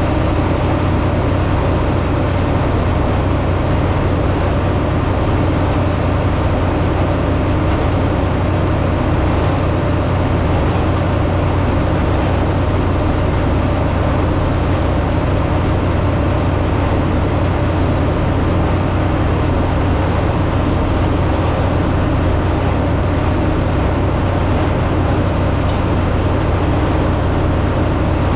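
Farm machine engine running at a steady speed, a constant drone with a low hum that does not change in pitch or level.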